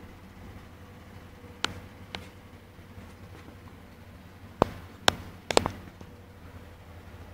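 About six sharp clicks or knocks over a steady low hum, the loudest ones coming in the second half, three in close succession.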